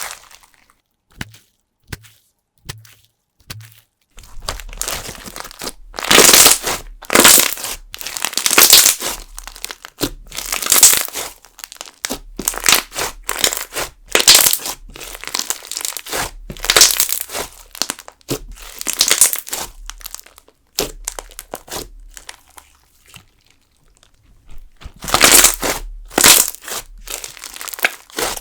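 Jelly slime mixed with sugar beads being squeezed and worked by hand, making crunching, crinkling sounds in bursts of about a second with short quiet pauses between them. The first few seconds hold only a few small clicks.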